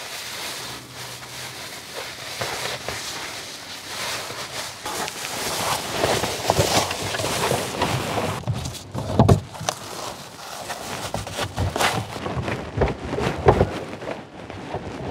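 Rustling and handling noises with scattered knocks and clicks, as of someone moving about and handling things inside a car; one sharper thump about nine seconds in.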